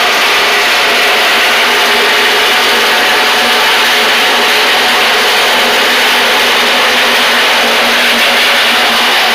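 Ryobi reciprocating saw cutting through the sheet-steel wall of a 55-gallon steel drum: a loud, steady, continuous buzzing rasp of the blade sawing through metal.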